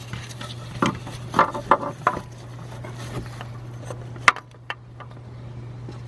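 Metal hand tools and parts clinking and knocking during work on the engine: a quick run of clanks in the first two seconds and one sharp click a little after four seconds, over a steady low hum.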